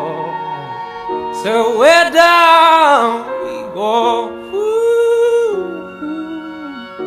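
Background music: a song, with a singing voice holding long, gliding notes over instrumental accompaniment.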